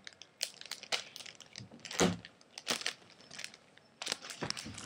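Package wrapping crinkling and crackling in short, uneven bursts as it is handled and its tape peeled, the loudest crackle about two seconds in.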